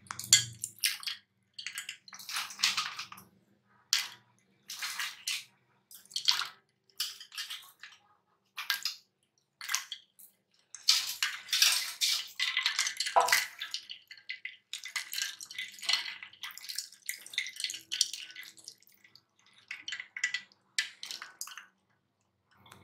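A spoon stirring a steel pot of milk drink with jelly pieces: the liquid sloshes and splashes in repeated irregular bursts, with the spoon knocking against the pot now and then.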